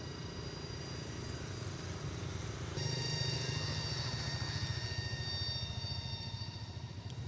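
Steady low engine rumble, like a vehicle idling. Steady high-pitched tones run over it and grow louder about three seconds in.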